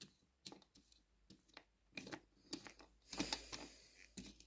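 Faint scattered clicks and light taps from small objects being handled on a desk while glue is brushed on, with a slightly louder cluster a little after three seconds in.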